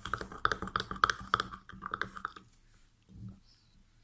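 Utensil beating a thick paste of olive oil and icing sugar in a bowl: a quick run of clicking taps that stops about two and a half seconds in, then one soft bump.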